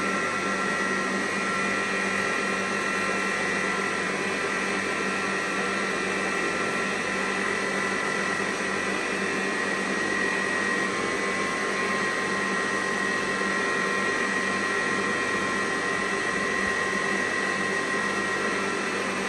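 Electric stand mixer running steadily at constant speed, beating butter-based red velvet cake batter, with a steady motor whine.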